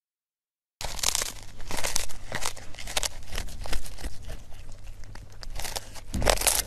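A cat crunching and chewing a small whole fish, with rapid irregular wet crunches and tearing bites close to the microphone, starting just under a second in.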